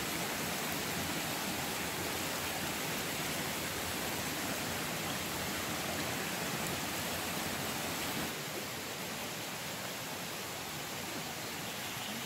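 Small shallow woodland stream running over stones: a steady rushing wash of water, a little quieter from about eight seconds in.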